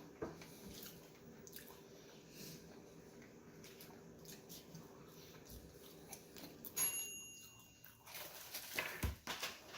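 Close-miked chewing and mouth sounds of someone eating a burger, with soft clicks and smacks that get louder near the end. A brief high tone sounds about seven seconds in.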